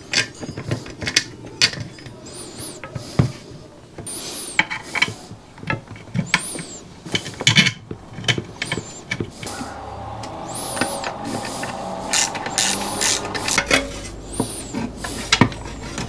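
Hands working on a portable compressor's parts: scattered clicks, light knocks and rubbing of metal and plastic as wires are tucked in and the housing is fitted back together.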